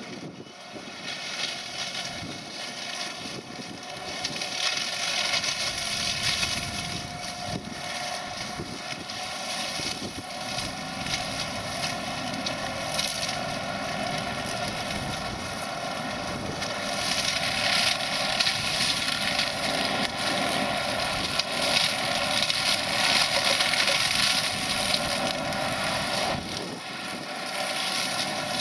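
Renault 155-54 tractor running under load, driving a flail hedge-cutter whose spinning head whirs and chops through hedge growth. It grows louder a few seconds in and again in the second half as the head bites into the hedge.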